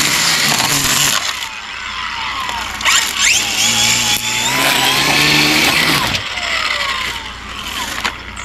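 Battery-powered string trimmer cutting weeds, its motor whine rising and falling as the trigger is worked. It eases off briefly about a second in and again from about six seconds in.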